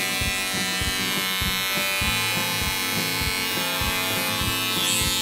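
Electric pet hair clipper running with a steady buzz while trimming the hair on a Yorkshire terrier puppy's ear; it is switched off at the very end.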